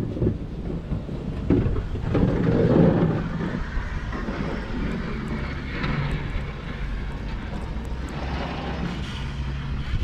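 Low, steady vehicle rumble mixed with wind rumbling on the microphone. A louder swell of noise comes about two seconds in, and a steady engine hum holds from about four seconds in.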